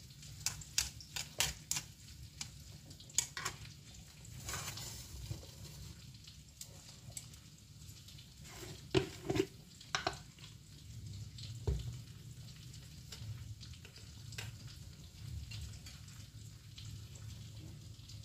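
Wooden chopsticks clicking and scraping against an aluminium bowl as wet noodles are tossed, in a quick run of sharp clicks over the first few seconds. A few louder knocks follow partway through as a plastic container is handled. A faint steady low hum runs underneath.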